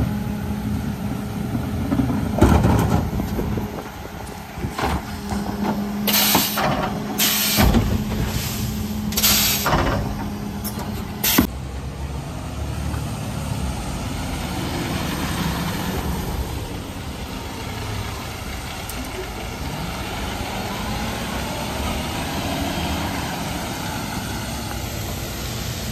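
Mercedes Econic refuse truck with a Faun Variopress body: a steady hum as the body's hydraulics run, with several short air hisses, the loudest about six to ten seconds in. A sharp clunk comes near the middle, then the truck's diesel engine runs steadily as it moves off along the road.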